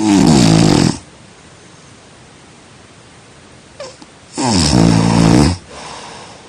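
A person snoring loudly: two rattling snores about a second long each, roughly four seconds apart, with a softer breath after the second.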